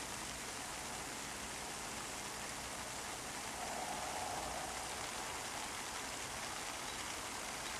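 Steady hiss and patter of water showering down onto leaves and stems, swelling slightly about halfway through.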